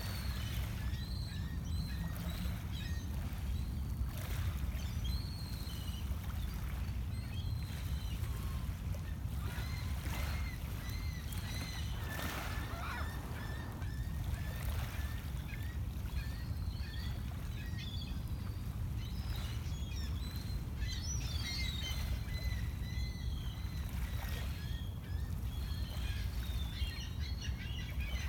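Birds calling in short, frequent chirps over a steady low rumble, with a denser flurry of calls about three-quarters of the way through.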